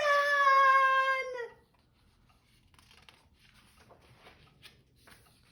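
A woman's voice shouting one long, drawn-out "Run!" in a storytelling voice that drops in pitch as it ends, followed by near quiet with a few faint soft ticks.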